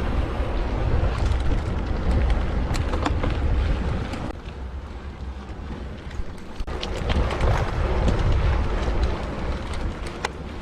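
Wind buffeting the microphone of a camera on a moving mountain bike, over rumbling tyre noise, with scattered sharp clicks and rattles from the bike. It eases for about two seconds midway, then picks up again.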